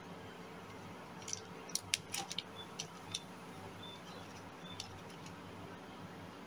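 Light clicks and ticks of small fishing tackle being handled by fingers: a cluster of them a second or two in, and a few fainter ones later, over a steady low hum.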